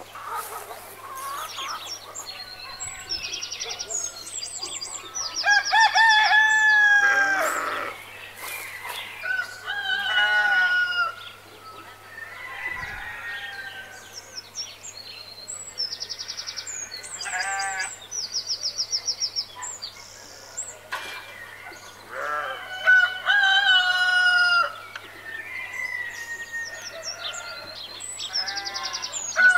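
A rooster crows twice, with hens clucking and small birds chirping in quick runs of high notes in between.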